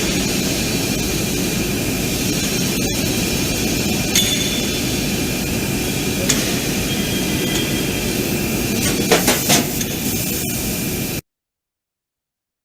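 Industrial laser cutting machine running with a steady, loud hiss and hum, and a few sharp metallic clinks near the end. The sound cuts off abruptly.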